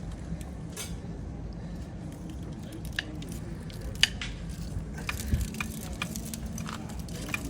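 Steel strands of a Kryptonite bike-lock cable snapping as bolt cutters bite through it and the cable is twisted: scattered sharp clicks, the loudest about four seconds in.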